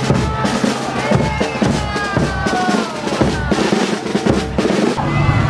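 A parade band's drums playing: snare and bass drums beating a dense marching rhythm, with some gliding higher tones over them.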